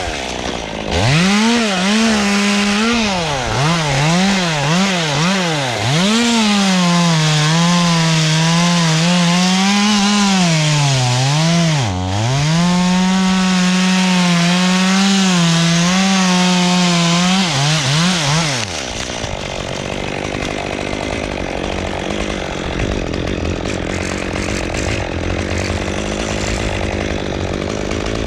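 Two-stroke chainsaw revving in short blips, then held at high speed through a long stretch, with the pitch sagging and recovering as it cuts into pine wood. About two-thirds of the way through the high engine note winds down, and a quieter, rougher running sound follows.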